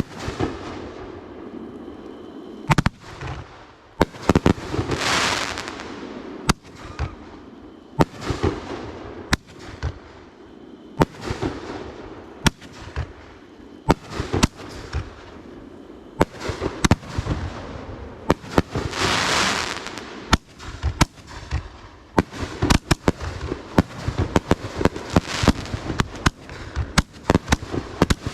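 Fireworks display: a run of sharp bangs from bursting fireworks, with two stretches of rushing hiss about five seconds in and again past the middle. The bangs come thicker and faster near the end.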